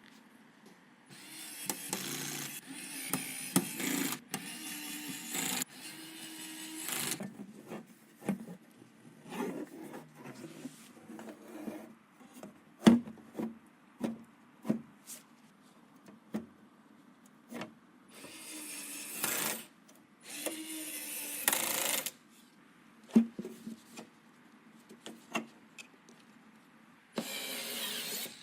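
PC components and case parts being handled and fitted by hand: stretches of rubbing and sliding alternate with sharp clicks and taps, the loudest a single knock about halfway through.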